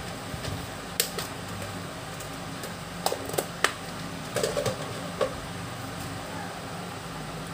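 A few sharp clicks and light taps, scattered and irregular, over a steady low hum.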